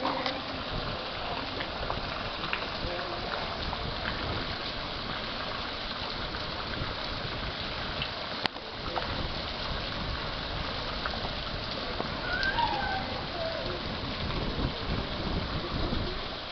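Heavy rain falling in a steady hiss. A single short click comes a little past halfway, and a brief wavering call sounds about twelve seconds in.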